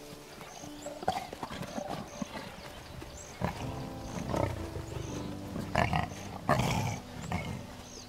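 Lions calling in several short, low vocalisations during the second half, a greeting as a young lion rubs against an adult male.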